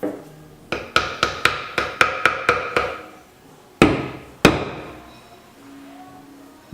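Hammer blows in woodworking: a single knock, then a quick run of about nine ringing taps at about four a second, followed by two heavier blows about half a second apart.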